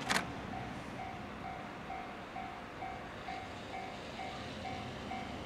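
Level crossing warning bell ringing steadily, a two-tone ding about twice a second, the signal that a train is approaching. A single sharp click sounds just after the start.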